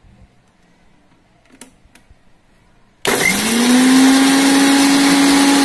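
Electric mixer grinder (mixie) with a steel jar switched on about three seconds in, spinning up quickly and then running loud and steady with a strong hum. It is grinding ginger, garlic, green chilli and fennel seeds into a coarse paste. Before it, a faint click.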